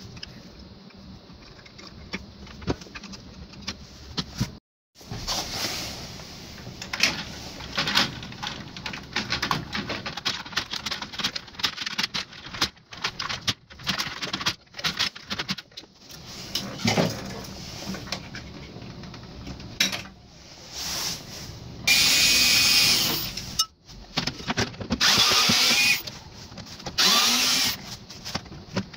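Small clicks, knocks and rattles of hands and tools working inside an open slot machine cabinet. In the second half come four short runs of a cordless electric screwdriver, each about a second long, driving screws into the machine.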